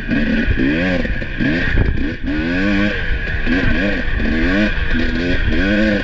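Husqvarna 300 two-stroke dirt bike engine blipped up and down on the throttle, its pitch rising and falling again and again, about once every half second to second, at trail-riding pace.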